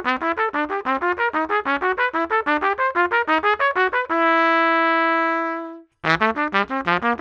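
LOTUS Universal Max trumpet, fitted with a brass tuning slide and heavy top valve caps, playing a fast run of short, separate notes that ends about four seconds in on one long held note, which fades away. After a brief silence a new fast run of notes begins.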